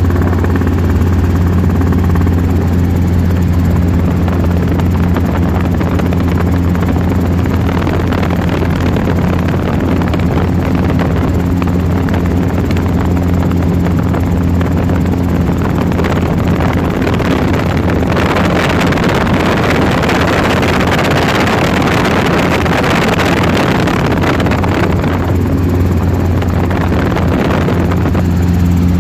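Helicopter heard from inside the cabin in flight: a steady low drone from the rotor and engine. A rushing air noise builds from several seconds in, is loudest through the latter middle, then eases near the end.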